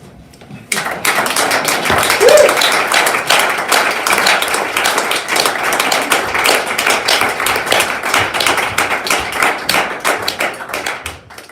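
A group of people clapping: dense, uneven applause that starts about a second in and dies away near the end, with a brief voice call about two seconds in.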